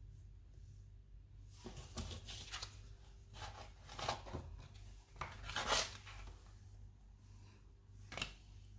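A plastic dough scraper cutting through soft brioche dough and scraping the worktop, with pieces of dough torn away, in several short scrapes, the loudest a little after halfway.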